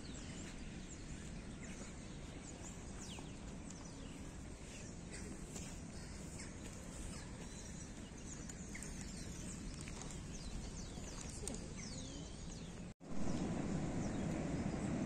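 Small birds chirping in many short, quick calls over a steady outdoor background hiss. After a brief cut in the sound about thirteen seconds in, a louder, steady low rumble takes over.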